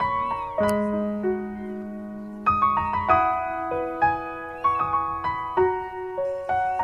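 Background music: a gentle piano melody of struck notes that ring on and overlap.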